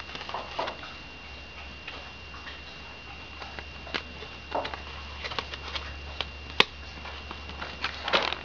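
A MacBook Pro on its first boot after a RAM upgrade: sparse, irregular light clicks and ticks, one sharper click about two-thirds of the way in, over a low steady hum and a faint thin high tone.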